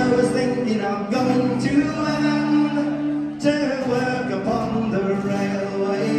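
Live folk-punk band playing in a large hall, with a man singing over the band.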